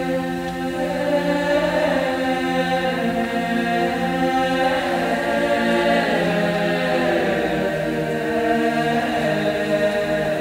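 Mixed choir singing a slow Georgian Orthodox hymn a cappella: sustained chords that shift slowly over a steady low bass drone.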